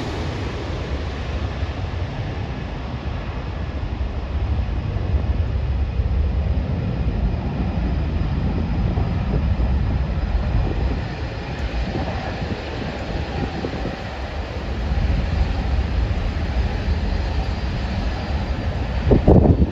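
Low, steady rumble of distant jet aircraft engines, with wind buffeting the microphone and a louder gust near the end.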